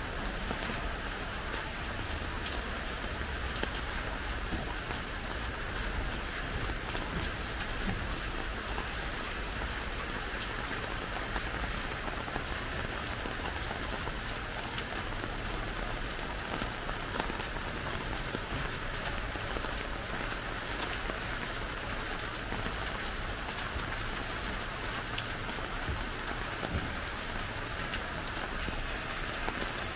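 Steady rain falling, a dense patter of small drops hitting the ground.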